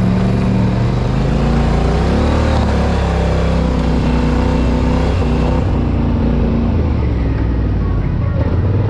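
Off-road vehicle engine running under load, its pitch rising and falling as the throttle is worked.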